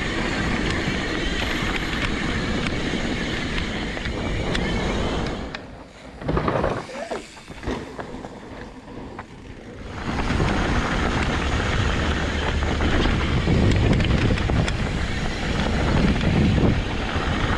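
Mountain bike ridden down a dirt trail: wind rushing over the camera microphone, with the tyres rumbling and the bike rattling over rough ground. It goes much quieter for a few seconds in the middle, then picks up again.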